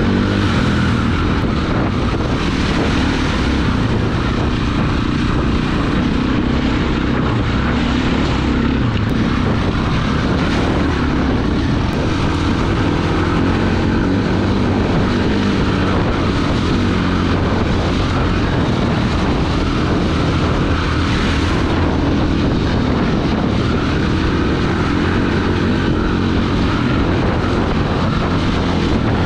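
Orange KTM enduro dirt bike's single-cylinder four-stroke engine running steadily under way.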